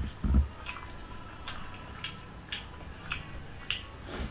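Eating by hand: fingers squishing and mixing rice and fish curry on a paper plate, and the mouth chewing, heard as a series of short wet clicks and smacks about one every half second to a second. A low thump comes just after the start.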